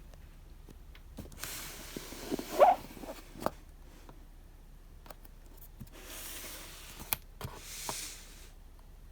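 Paper and plastic packaging being handled during an unboxing: soft rustling and sliding in three short stretches, with a few light taps and a brief squeak about two and a half seconds in.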